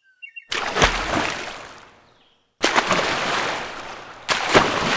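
Water splashing three times, each splash starting suddenly and dying away over about a second and a half.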